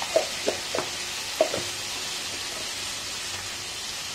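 Sliced potatoes, onions and capsicum sizzling in oil in a nonstick frying pan, with a few short knocks and scrapes of the spatula against the pan in the first second and a half.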